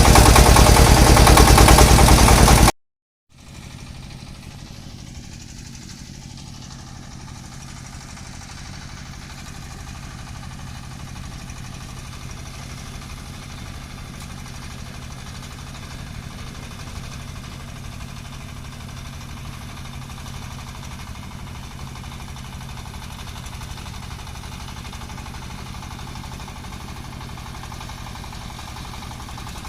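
An engine running loudly and close for about the first three seconds, then a sudden cut. After it, an engine runs steadily and more quietly with an even, low pulsing.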